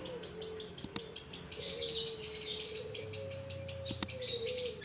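Green (hijau sayur) lovebird singing a long unbroken run of rapid, high chirps, the drawn-out 'ngedir' song that keepers prize in a contest bird. Two sharp clicks cut through it, one about a second in and a louder one near the end.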